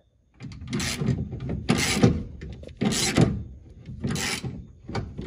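Ratchet wrench being swung back and forth, tightening bolts, in five rasping strokes about one a second.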